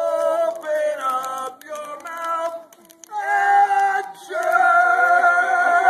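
A small group of voices singing a campfire action song a cappella in several drawn-out notes, the last one held long.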